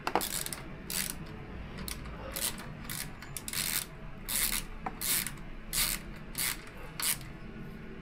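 A hand ratchet being worked back and forth to run in a bolt, a quick series of rasping ratchet clicks at an uneven pace, about a dozen strokes.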